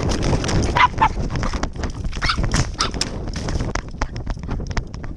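Action camera riding on a running dog's harness: fast, irregular clicks and knocks from footfalls and the jostled harness and mount, over a low rumble of wind and buffeting. A couple of short, high dog yelps come about a second in and again around two and a half seconds.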